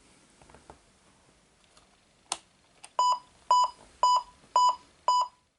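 An electronic beeper sounds six short beeps, about two a second, shortly after a single sharp click.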